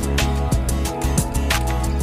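Background music: a guitar-led track with a steady beat and bass.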